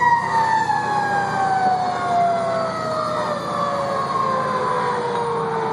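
Fire engine's siren heard from inside the cab: one long wail that winds slowly down in pitch, over the steady low rumble of the truck's engine.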